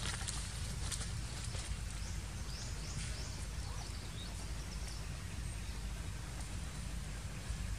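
Outdoor ambience: a steady low rumble with faint rustles and clicks. About two and a half seconds in, a bird gives a quick run of about four short, high, rising chirps.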